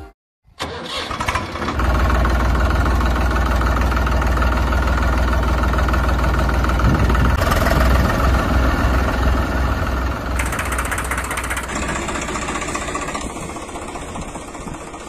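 Engine sound effect: a motor vehicle engine comes in about half a second in and runs steadily with a strong low throb, fading away over the last few seconds.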